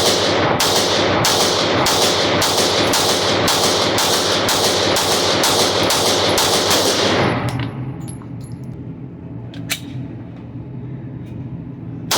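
9mm PSA Dagger pistol fired in a rapid, even string of shots, about three a second, stopping about seven seconds in. A few lighter sharp ticks follow.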